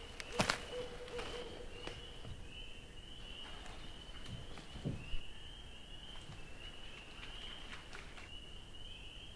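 Boot footsteps on leaf litter and forest ground, with a sharp step about half a second in and another near five seconds, over a steady high-pitched repeated trilling from an unseen animal chorus.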